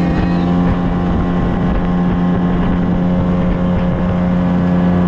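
A boat's motor running at a steady speed under way, a constant engine drone with no change in pitch.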